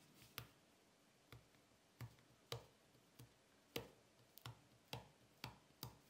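Faint, irregular clicks and taps, about a dozen, from metal tweezers touching the iPhone 7's battery and frame while picking at the battery's adhesive pull tabs.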